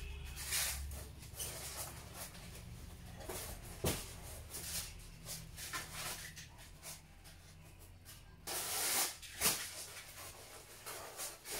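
Handling noise: scattered rustling, a sharp knock about four seconds in, and the loudest rustle about three-quarters of the way through.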